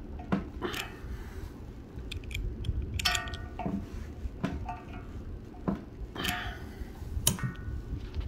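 A 13 mm socket on a steel extension bar being pressed down over valve stem seals on a BMW M54 cylinder head's valve guides: a series of sharp metallic clicks and clinks, two of them ringing briefly.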